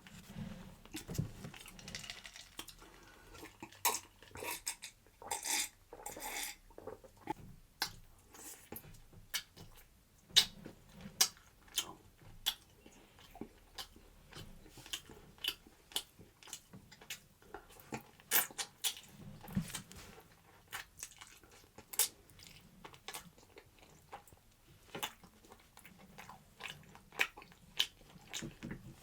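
Kitchen handling sounds during food preparation: irregular sharp clicks and taps with soft moist squishing between them.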